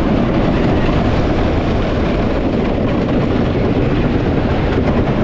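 Wooden roller coaster train running along its track: a steady, loud, deep rushing noise with no breaks.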